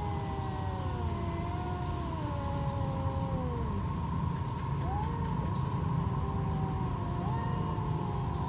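Two stray cats yowling at each other in a territorial standoff: long, drawn-out wails that overlap and slide slowly down in pitch, with a new wail swooping up and then falling about five seconds in.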